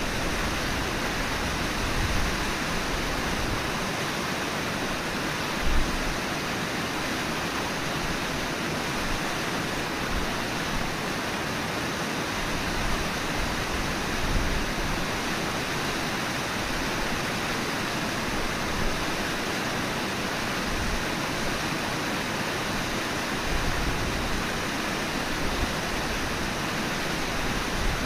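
Steady rush of the Brooks River's flowing water, an even hiss-like roar with no pauses, with a few brief low bumps, the biggest about six seconds in.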